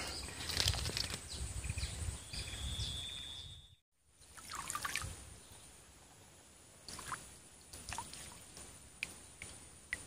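Small splashes and trickling in shallow swamp water as a fishing rod tip and live bait are worked at the surface, with a few sharp ticks in the second half. The sound cuts out completely for a moment a little under four seconds in.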